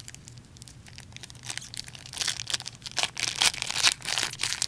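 Wrapper of a hockey card pack being torn open and crinkled by hand: a run of quick crackles that gets denser and louder from about a second and a half in.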